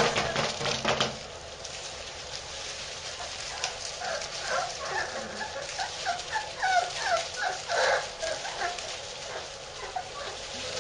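Several young puppies whimpering and squeaking, many short high calls sliding up or down in pitch, thickest in the second half. A brief burst of rustling comes in the first second.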